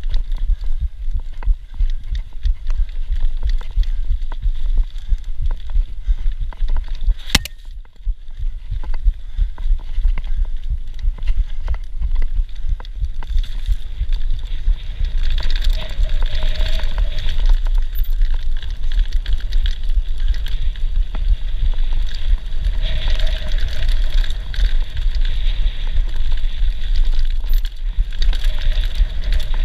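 Mountain bike rattling and bumping over a rough dirt singletrack at speed, with a stream of small knocks and a sharp click about seven seconds in. Heavy wind rumble on the microphone.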